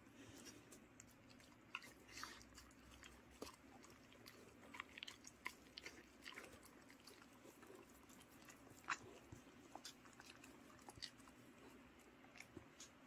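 Two dogs chewing steamed sweet potato taken from a hand: faint, irregular wet smacks and small clicks of mouthing and chewing, with one sharper click about nine seconds in.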